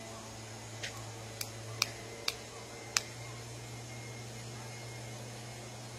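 Five short, sharp clicks, unevenly spaced over about two seconds, over a steady low hum.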